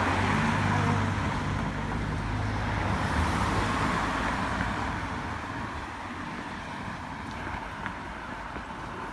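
Road traffic: a motor vehicle's engine hum and tyre noise, loudest in the first few seconds and slowly fading, leaving a steady traffic rumble.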